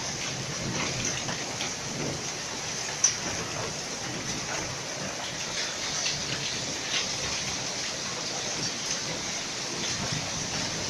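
Hailstones falling in a steady shower: a dense patter of small ticks over a hiss, with one sharper crack about three seconds in.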